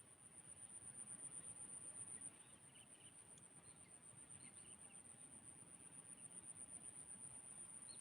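Faint, steady, high-pitched insect trill that pulses quickly, with a few faint short chirps in the middle.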